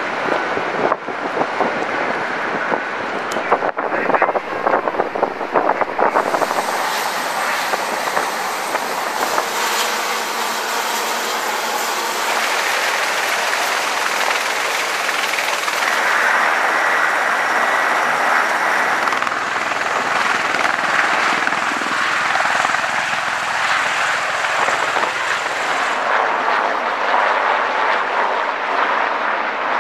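A run of edited field recordings of military aircraft: steady engine and rotor noise from a V-22 Osprey tiltrotor and helicopters, changing abruptly at each cut. A few sharp knocks in the first few seconds.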